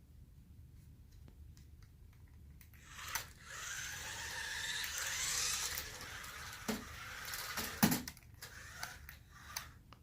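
Small electric motor and gears of a toy remote-control car whirring for about four seconds, rising and falling in pitch, followed by a couple of sharp knocks.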